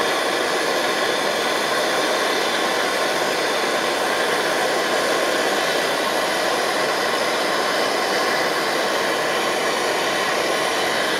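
MSR Dragonfly white-gas stove burning at full output with a steady, even rushing noise, heating a lidded pot of water toward the boil.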